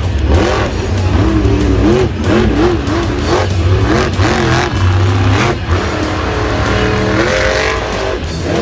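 Max-D monster truck's supercharged V8 revving hard as the truck drives and turns on the dirt. Its pitch swings up and down over and over, then holds higher near the end.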